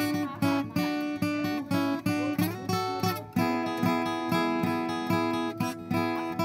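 Background music: an acoustic guitar strummed in a steady rhythm, about two strums a second.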